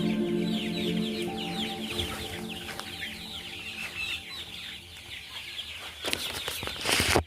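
A crowd of broiler chicks cheeping continuously, many short falling peeps overlapping. A loud rustling noise rises near the end and cuts off suddenly.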